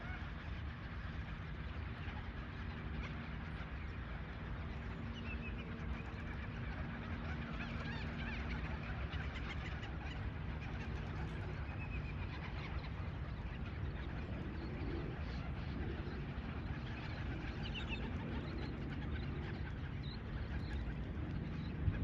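Large mixed flock of shorebirds and waterbirds calling together: a dense, continuous chatter of many short overlapping calls over a steady low rumble.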